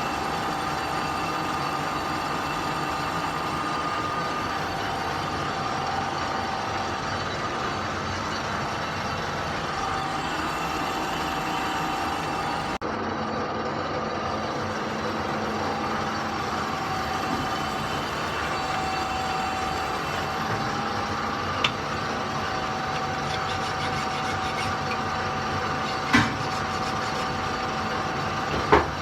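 A workshop machine running steadily with a constant whine. There are three sharp knocks near the end.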